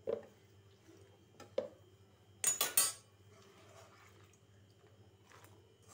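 A steel bowl of soaked dried red chillies being handled: two short knocks, then a louder metallic clatter of several quick strokes about two and a half seconds in.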